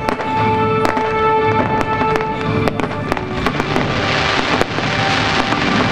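Fireworks popping and crackling with many sharp reports, over music with held notes. A dense crackling fizz swells from about halfway through as red and green crackling stars burst.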